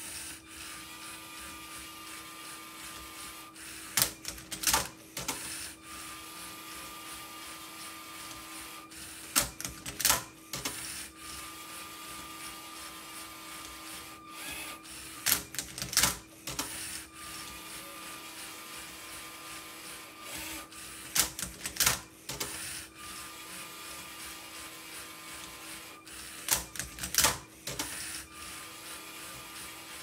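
LEGO Spike Prime robot motors whirring steadily as the Rubik's Cube solver works the cube. About every six seconds the whirr is broken by a pair of loud plastic clacks as the flipper arm tips the cube over in its cradle.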